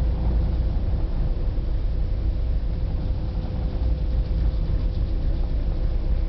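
Steady low rumble of a large ferry's engines under way, heard from inside the passenger cabin, with a faint steady hum above it.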